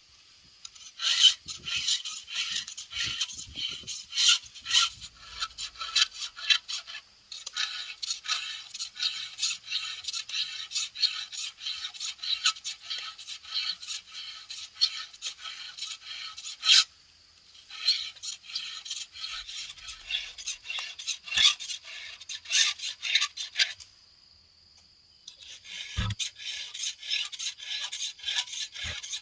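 A file being drawn quickly over the cutters of a Stihl MS 070 chainsaw's chain, sharpening it in runs of rapid scraping strokes, with short breaks about 17 seconds in and again near 24 seconds.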